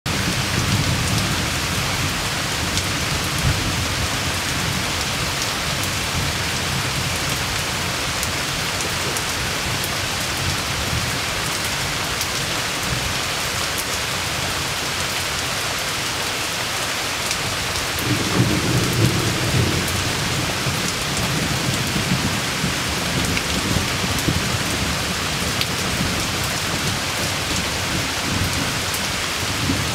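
Heavy tropical rain falling steadily on forest foliage, a dense hiss with scattered drop ticks. Low thunder rumbles through the first few seconds and swells again about two-thirds of the way through.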